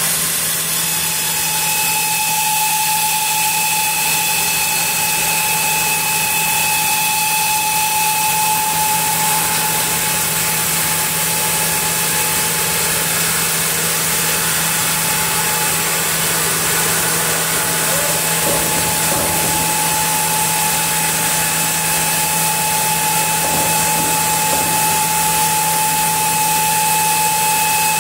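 Vertical band sawmill running and sawing through a camphor (kusunoki) log as the carriage carries it past the blade. The sound is a steady hiss with a low hum, and a high whine sets in about two seconds in and holds.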